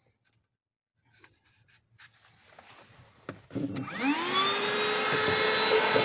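Handheld car vacuum cleaner switched on: a few faint handling clicks, then about three and a half seconds in its motor whines up in pitch over about half a second and settles into a steady run with a rush of air.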